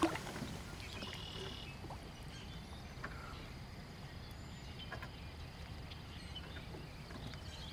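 A largemouth bass is set into the water beside the boat for release, with a light splash right at the start, then faint water sounds over a low, steady background rumble and a few faint ticks.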